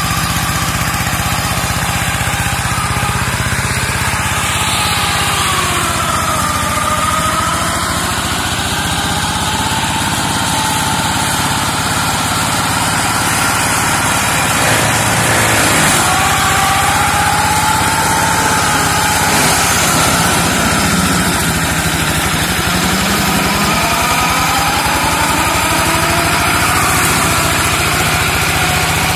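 Engine of a walk-behind two-wheel hand tractor with a brush-mowing attachment running steadily under load while clearing brush, its pitch wavering slightly up and down as the load changes.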